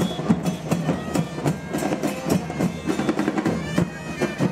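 Percussion-led carnival music: drums beating a fast, busy rhythm, with many sharp hits a second.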